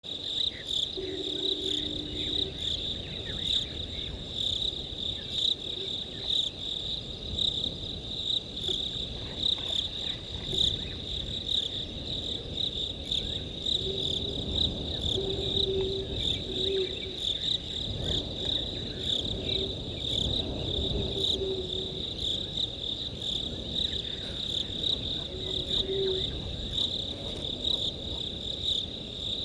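A steady chorus of crickets trilling at a high pitch, with a few short low tones here and there.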